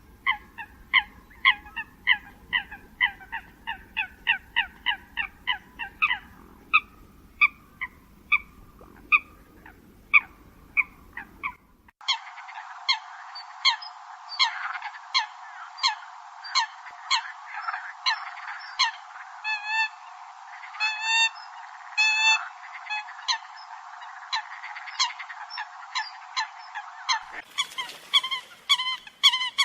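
Eurasian coots calling: a rapid series of short, honking calls, about two or three a second. The recording changes abruptly about twelve seconds in and again near the end, as separate recordings are joined.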